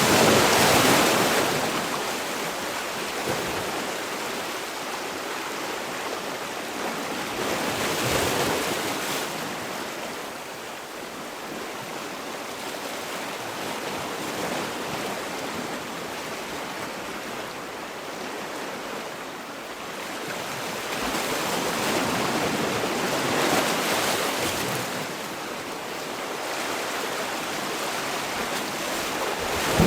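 Sea waves breaking and washing onto the shore, a steady surf that swells with a wave just as it begins, again about 8 seconds in, and once more in the last third.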